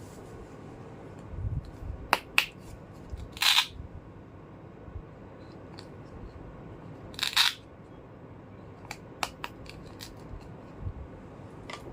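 Small plastic toy pieces being handled: sharp clicks and taps, a few soft thuds, and two short scraping rasps, one about three seconds in and one about seven seconds in.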